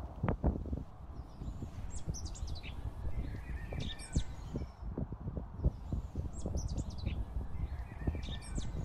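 A songbird singing short, quick phrases every couple of seconds, over a steady low rumble and scattered soft knocks close to the microphone.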